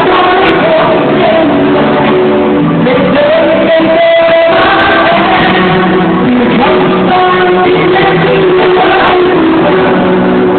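Live pop music: a singer with a band, guitar among the instruments, the voice holding one long note about halfway through.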